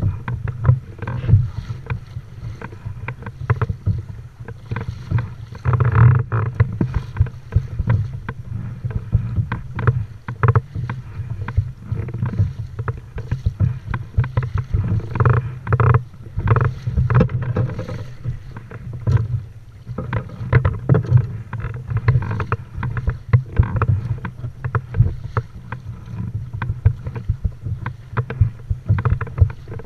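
Water splashing and slapping against a kayak hull as it moves through choppy sea, in uneven surges, over a steady low rumble of wind buffeting the microphone.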